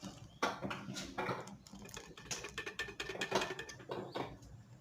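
Liquid cake batter being emptied from a blender jar: irregular clicks, taps and scraping as the jar is handled and the mixture pours out.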